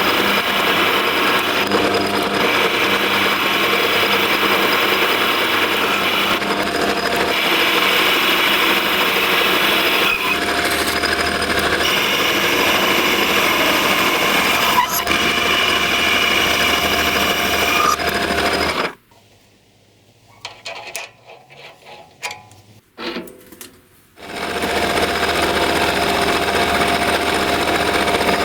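A power tool running steadily. It stops about two-thirds of the way through, leaving about five seconds of small clicks and knocks, then starts up again.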